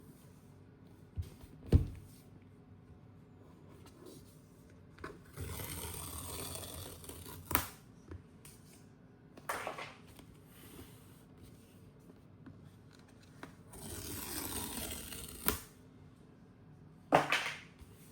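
Cardboard and paper packaging being handled by hand: two long sliding, rustling swishes, with several sharp clicks and taps in between.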